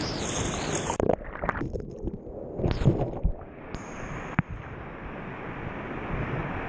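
Whitewater rushing and splashing over a kayak-mounted camera, with sharp splashes of water hitting the camera about a second in and again around three seconds in. The sound goes dull for a moment around two seconds in.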